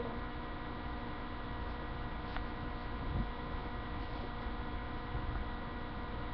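A steady electrical hum made of several even tones, with a few faint low bumps from handling.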